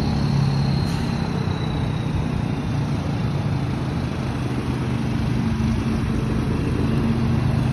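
Scania semi-truck's diesel engine idling steadily, a low even hum.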